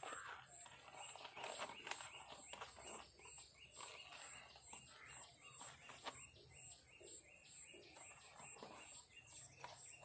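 Faint woodland ambience: a steady high-pitched trill, scattered bird chirps, and soft clicks and rustles from a plastic-bottle bird feeder being handled against branches.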